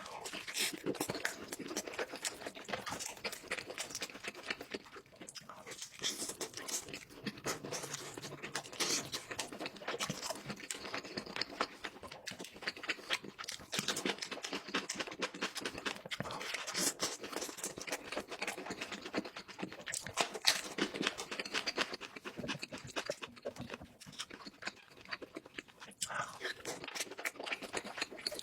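Close-miked eating sounds: a person chewing and smacking food, with a continuous run of wet mouth clicks and crunches.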